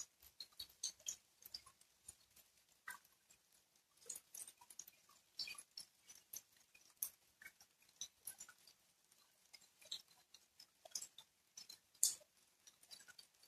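Rain falling on wet ground and puddles, heard as faint, irregular ticks of separate drops rather than a steady hiss. One sharper drop hit comes about twelve seconds in.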